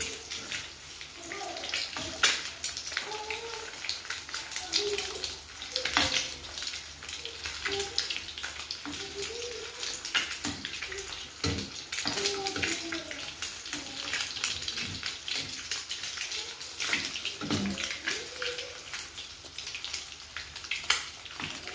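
Slices of boiled spleen frying in hot oil in a pan: a steady crackling and spattering of many quick sharp pops, as the slices are given a brief sear.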